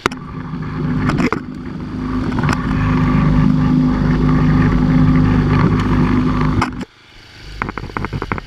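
Lawn Chief riding lawn mower engine running at steady high revs, cutting off abruptly about seven seconds in, followed by a quick series of rattling clicks and knocks.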